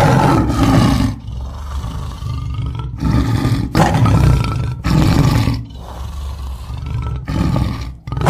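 Tiger roaring repeatedly: loud, deep roars about a second long, a second or two apart, with a lower rumble between them.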